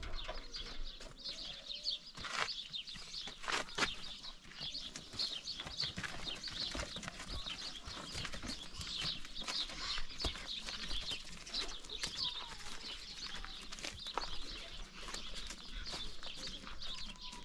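Small birds chirping on and off, with a few sharp knocks.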